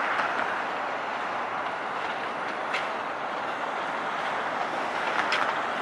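Amtrak electric train of Amfleet coaches passing: a steady rush of steel wheels on rail, with two sharp clicks, one about three seconds in and one near the end.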